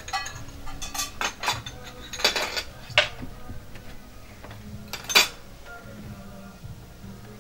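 Dishes clinking and being set down on a table: a handful of short, sharp clinks, the loudest about five seconds in.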